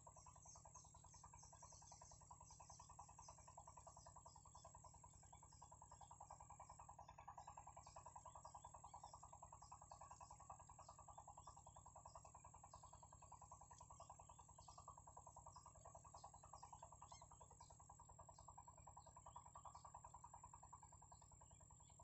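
Faint, steady chorus of calling insects and frogs, a dense ticking with a constant high whine over it, a little louder through the middle.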